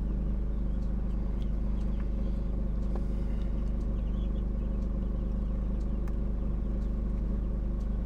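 Steady low machine hum running unchanged, with a few faint clicks from small parts being handled.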